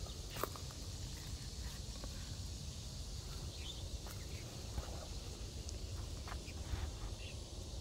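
A bottle gourd set down into a woven basket, with a sharp knock about half a second in, then a few faint clicks and rustles of handling and steps through ground-cover weeds. Under it is a steady low rumble and a high hiss.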